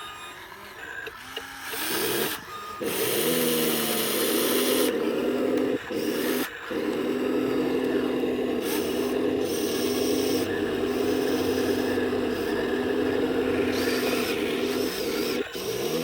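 Electric motors of radio-controlled model construction machines whining under load, spinning up about three seconds in, briefly dropping out, then running steadily until they stop near the end, with a scratchy scraping of loose soil underneath.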